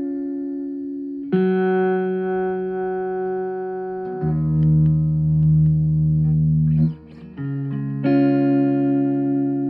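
Guitar played through a Fender Bronco amplifier: a series of long-held notes, each changing abruptly to the next every two to three seconds, with a short break about seven seconds in.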